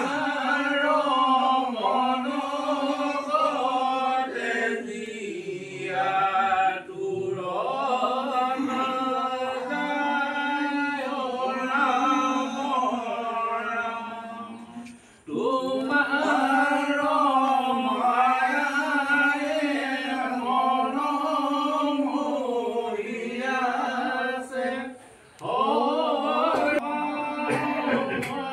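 Several men chanting a devotional hymn together in long phrases on a steady pitch. The chant breaks off briefly three times, a little after the start, midway and near the end.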